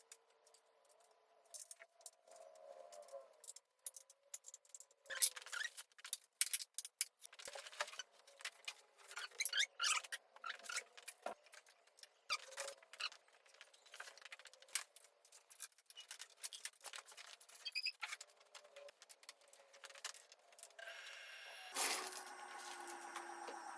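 Irregular clicks, knocks and rattles of furniture parts and hardware being handled while a desk and chair are assembled, busiest in the middle. Near the end a steady whir starts and runs for about three seconds.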